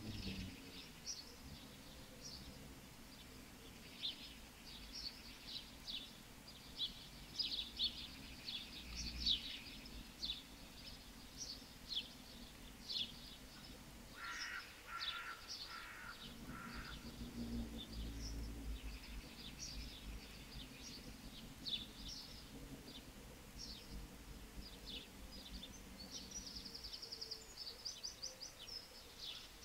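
Small birds chirping over and over, with a quick high trill near the end and a few lower, harsher calls about halfway through, over a low steady background hum that stops near the end.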